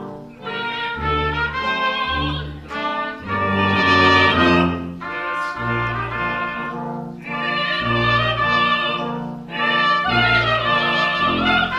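Brass ensemble of trumpets, trombones, horn and tuba playing a classical piece: sustained chords over a tuba bass line that moves about once a second.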